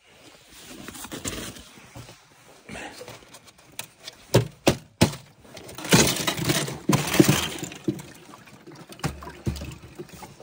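Sheets of ice on a cattle water trough being broken up by a gloved hand: sharp cracks a little past the middle, then a busy stretch of crackling and clinking ice with water sloshing.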